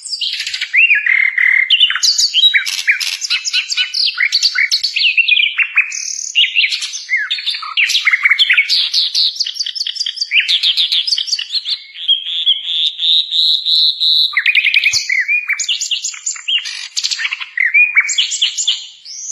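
Kincrong songbird singing a long, varied song: fast runs of chirps and trills mixed with whistled notes that slide up and down, with only short pauses.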